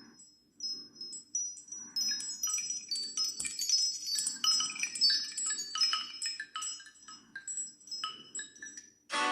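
A Nokia Asha 300 ringtone of high, tinkling chime notes like wind chimes, starting sparsely and becoming a dense cascade about two seconds in.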